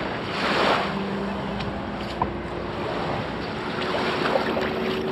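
Small waves washing onto a sandy shore with wind on the microphone, and a distant engine's steady hum joining about a second in.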